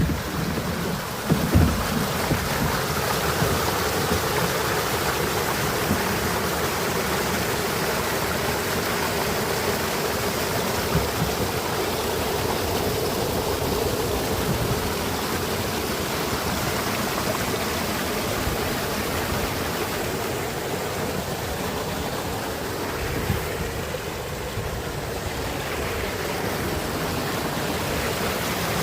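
Small river waterfall: water pouring and rushing steadily, with a few brief knocks in the first couple of seconds.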